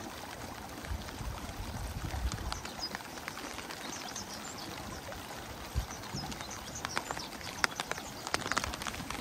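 Rain falling: a steady hiss with many irregular sharp drop taps, the taps growing denser over the last couple of seconds.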